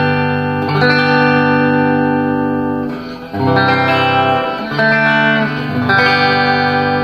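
Epiphone electric guitar played through an amplified speaker on its bridge pickup with a clean tone: strummed chords left to ring, changing about four times.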